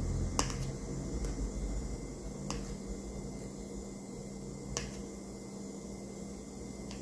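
A metal fork clicks against the rim of a metal springform pan while raking ridges into a whipped-cream topping. There are three sharp clicks about two seconds apart, the first the loudest, over a faint steady hum.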